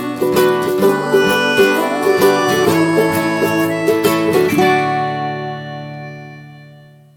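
Instrumental music on plucked strings: a run of quickly picked notes, then a final chord left ringing about four and a half seconds in and fading away at the end of the piece.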